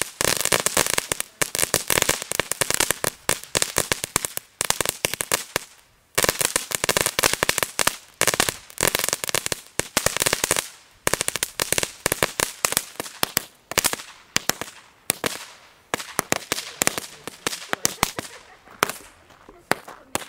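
Crackling ground-fountain firework spraying crackling stars: dense, rapid crackle in clusters of sharp pops, a new flurry every second or two, thinning out to scattered pops near the end as the device burns down.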